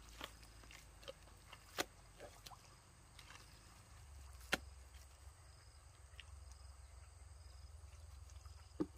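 Faint, scattered wet clicks and slaps of hands digging through soft pond mud, with sharper ones about two and four and a half seconds in and another near the end, over a low steady rumble.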